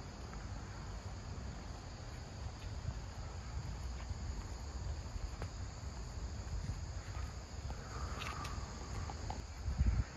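Outdoor ambience of insects chirping steadily, under a low rumble and the occasional faint tick of handling or steps as the recorder moves.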